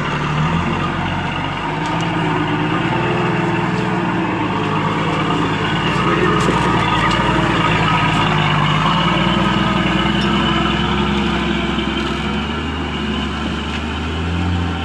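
Truck engine running steadily as a lorry overloaded with sugarcane drives slowly away.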